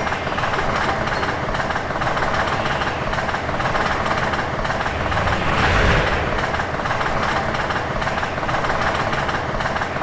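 Electric passenger train passing at speed: a steady rush and rumble of wheels on the rails, swelling loudest about six seconds in as it goes by.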